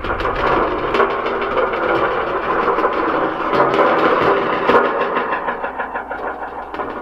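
Dense, rattling, engine-like noise texture from a live sound-art performance, with a scattered run of sharp clicks, fading gradually over the last couple of seconds.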